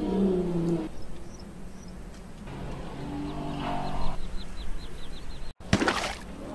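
Elephants giving low, deep calls, twice, the first falling in pitch, with a bird chirping rapidly, about five high chirps a second, over the second call. Near the end the sound cuts out for an instant and gives way to a loud, rough burst.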